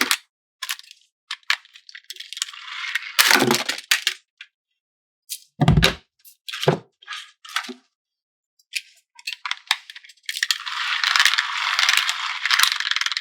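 Plastic toy parts and packaging rattling and crackling as they are handled, in irregular bursts. There are two heavier knocks, about three and six seconds in, and a dense run of rattling starts near the end.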